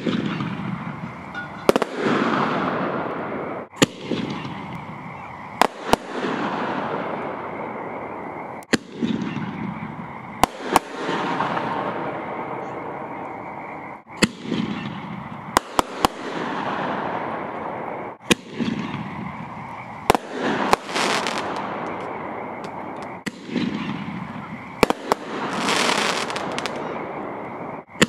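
Triple Threat aerial firework shells going off in a steady string. Sharp bangs come about every two seconds, each followed by a long whistling scream that falls in pitch, and now and then two bangs land close together.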